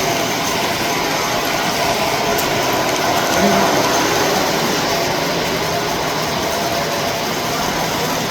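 Steady mechanical running noise from a model railroad layout's animated mechanism.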